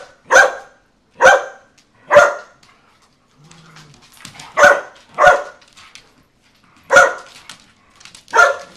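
A dog barking during rough play among several dogs: seven short, sharp barks, each one separate, with pauses of under a second to two seconds between them.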